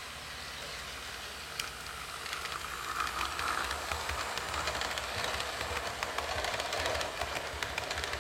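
HO scale model train, a locomotive with double-deck passenger coaches, running along sectional track: a steady running sound with rapid fine clicking from the wheels on the rails, growing louder from about two seconds in as it passes close by.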